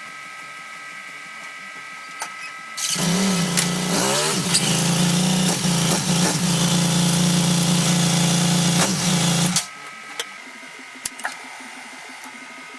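Yamaha XT1200Z Super Ténéré's parallel-twin engine started about three seconds in, catching quickly and rising in revs before settling to a steady idle, then shut off abruptly some six or seven seconds later. It starts readily, without the hard-starting fault being tested for.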